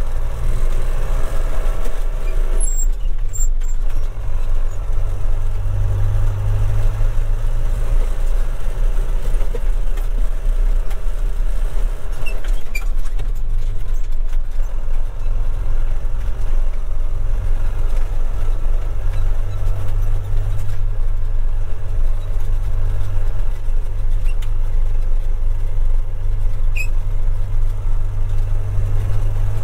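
1994 John Deere 6200's 3.9-litre four-cylinder turbo diesel running steadily under load while the tractor is driven, heard from inside the cab. It has a strong low drone, with a few faint clicks.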